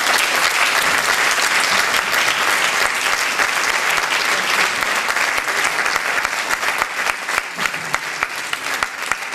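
Audience applauding, a dense run of clapping that thins a little near the end.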